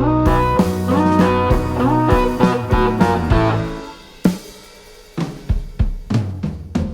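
Background music: a melody over a drum-kit beat, which drops away about four seconds in and comes back with a run of drum hits.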